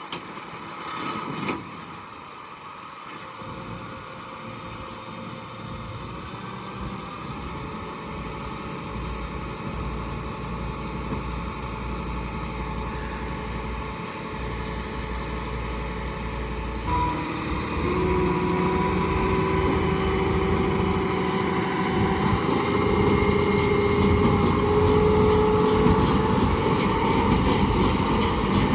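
A tractor engine running, growing steadily louder, with its pitch stepping up partway through and then creeping slowly higher.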